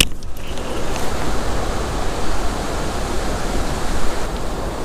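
Steady rushing noise with an uneven low rumble, typical of wind on the microphone, with no distinct events.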